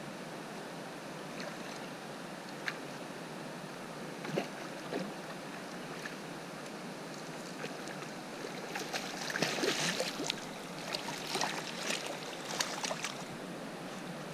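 Water splashing in short, sharp bursts over a steady rush of river noise: a hooked rainbow trout thrashing at the surface as it is drawn to the landing net. The splashing is loudest and densest in the second half, with a few single splashes earlier.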